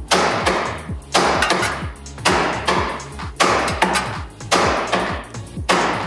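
Steel hand hammer striking the steering knuckle at the front ball joint, six hard metal-on-metal blows about one a second, each ringing briefly: shock blows to break loose a seized ball joint.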